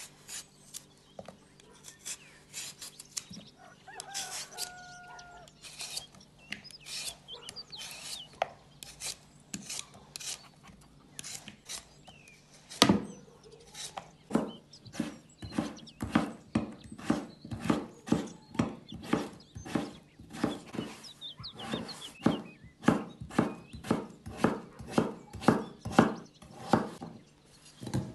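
Knife chopping on a wooden cutting board. The cuts are scattered at first; from about halfway there is a steady run of about two chops a second.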